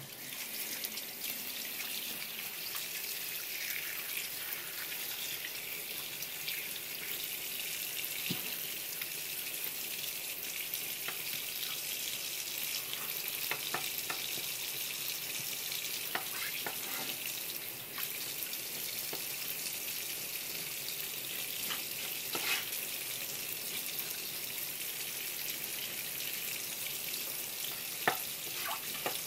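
Tap water running in a steady stream, splashing onto a wooden cutting board and over scallop meat being rinsed by hand, with a few small knocks of handling, the sharpest near the end.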